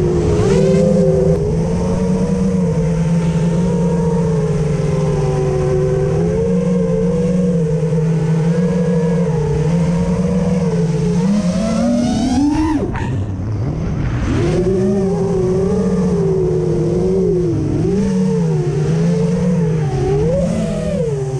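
FPV quadcopter's brushless motors whining, the pitch wavering up and down with the throttle. It climbs steeply about twelve seconds in, drops away briefly, and climbs again near the end.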